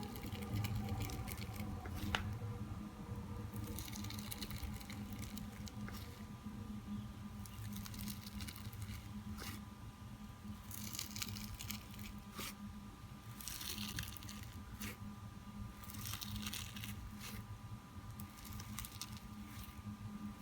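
Hands squeezing and poking soft butter slime made from hand soap, wheat starch and baby oil, giving squishy, crackly sounds in bursts every few seconds over a faint steady hum.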